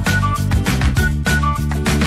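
Background music with a steady beat and a melody of short high notes.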